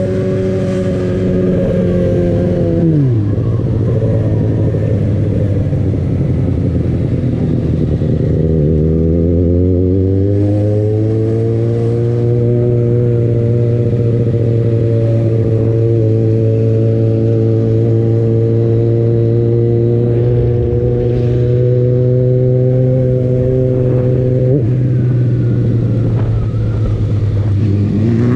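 Yamaha XJ6's 600 cc inline-four engine heard from the rider's seat: the revs fall away about three seconds in and stay low for several seconds, then climb as the bike pulls away and hold steady at cruising speed.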